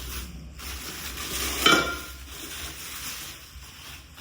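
Crackling rustle of packaging as a new stainless steel pot set is handled and unpacked, with a brief louder knock about a second and a half in.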